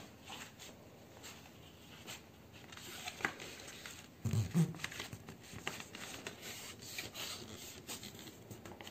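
Paper rustling and rubbing as fingers fold a cut corner flap of pastel paper or card back and press it flat, in small scattered rustles and light clicks, with a brief low sound about halfway through.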